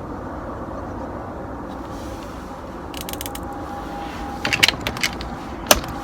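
Rifle handling clicks: a few light clicks about three seconds in and a short rattle of clicks a little later, then a single sharp shot near the end, heard over a steady background rumble.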